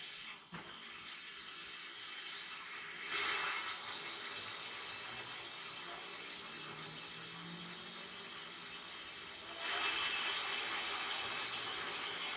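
Compressed air hissing from a blow nozzle held in the mower engine's oil fill tube under a rag, forcing the old oil out through the drain hose. The hiss grows louder for about a second some three seconds in, and again near the end.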